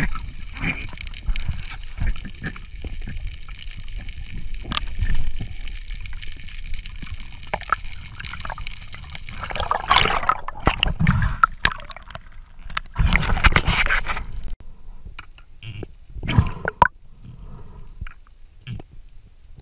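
Underwater sound of a spearfishing dive: scattered clicks and knocks of the gear, with two loud bursts of bubbling gurgle, about ten and thirteen seconds in, as air bubbles rise past.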